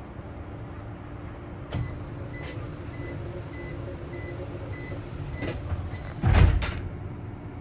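Inside a moving bus: a steady low cabin rumble, a series of short electronic beeps about twice a second from about two to five seconds in, then a loud clunk a little after six seconds.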